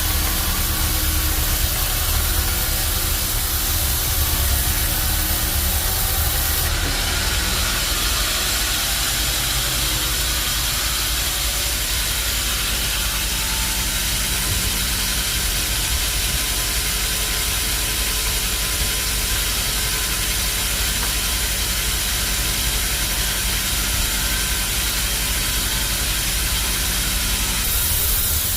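Bandsaw sawmill running with a steady low hum and a broad hiss; about seven seconds in the hiss grows brighter and holds steady until near the end.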